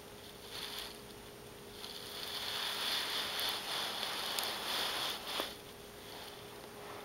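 Fingers scratching and rustling on a carpet to tempt a kitten: a short scratchy burst, then a longer stretch of scratching lasting a few seconds, with a couple of light clicks near the end.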